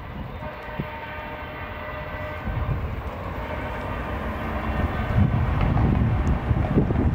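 A train coming through, its low rumble growing steadily louder, with a set of steady tones ringing over it in the first few seconds.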